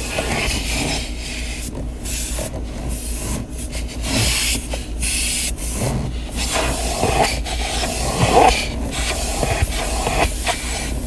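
Car wash vacuum sucking air through its hose as the nozzle is worked over a car's center console and around the gear shifter. The steady hiss drops out briefly several times over a low hum.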